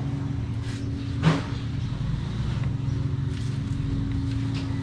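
A steady low engine hum, like a motor idling, with one sharp click a little over a second in.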